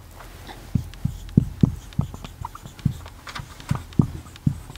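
Marker pen writing on a whiteboard: an irregular string of short soft knocks as the strokes hit the board, with a few faint squeaks.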